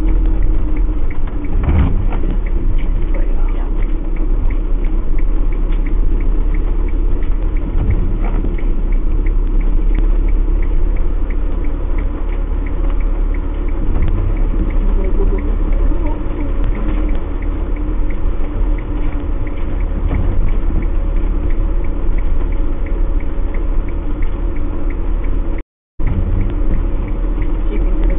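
Motorhome engine and drivetrain rumble heard inside the cab while driving slowly over a waterlogged grass field, with a couple of knocks as it rides over the ground. The sound cuts out briefly near the end.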